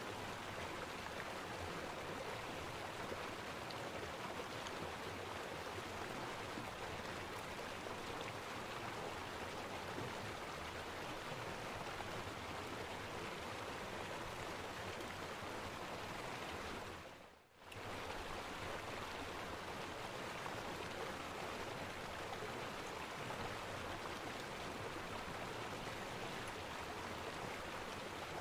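Steady rushing noise, like running water, that drops away briefly about two-thirds of the way through and then returns unchanged.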